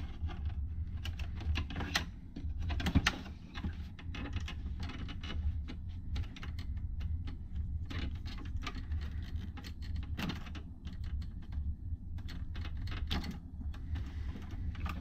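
Scattered small clicks and rattles as a sealed lead-acid battery is slid out of a plastic battery-backup housing and the spade connectors are worked off its terminals. A low steady hum runs underneath.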